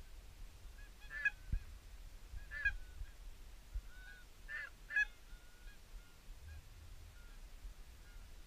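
Geese honking in short single calls, several in the first five seconds and fainter ones after.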